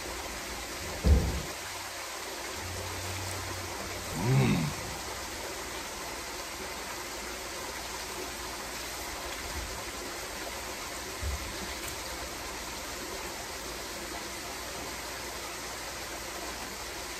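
Steady rushing noise like running water, with a man chewing a breakfast sandwich: a low thump about a second in and a short hummed "mm" around four seconds in.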